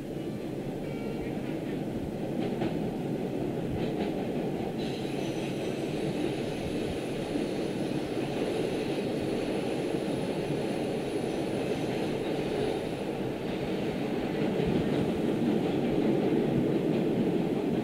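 MBTA Orange Line subway train running, heard from on board: a steady rumble of wheels on rails that grows gradually louder. A high-pitched whine comes in about five seconds in and fades out around thirteen seconds.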